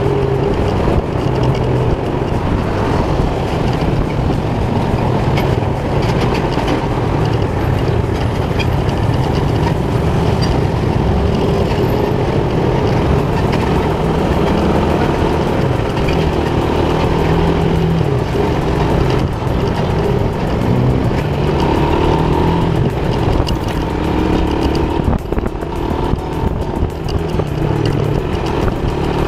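Motorcycle engine running while riding through city traffic, its pitch rising and falling with the throttle, among the noise of surrounding cars and scooters.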